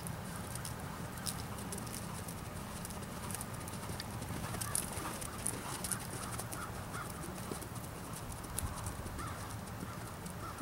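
Hoofbeats of a horse trotting on sand arena footing: a run of soft, irregular clicks and thuds over a steady low rumble.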